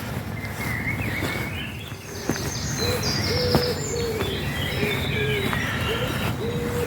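Early-morning birdsong from several birds: short chirps and whistled glides, with a run of low, flat, repeated notes starting about two and a half seconds in, over a steady low background rumble.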